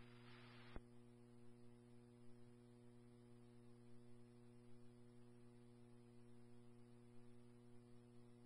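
Near silence on a police scanner feed: a faint steady electrical hum, with a short hiss of radio noise that cuts off with a click under a second in.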